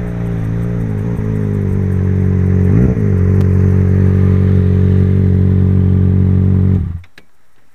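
Yamaha XJ6's inline-four engine running through an aftermarket stainless Power exhaust with a carbon-fibre tip: revved lightly with small rises and dips, a quick sharp blip of the throttle about three seconds in, then a steady held note that stops abruptly near the end.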